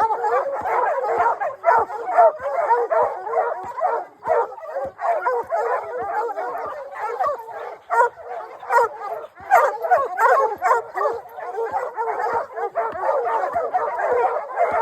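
A pack of bear hounds barking and bawling at once, a dense, unbroken din of overlapping barks with yips and whines mixed in: the dogs baying a bear they have caught in a hole.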